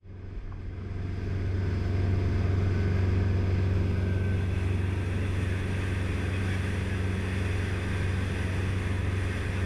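Dive boat running at speed: a steady low engine drone under the rush of water and spray along the hull. It fades in over the first second or two.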